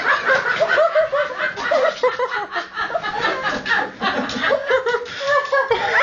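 People laughing and chuckling, several voices overlapping.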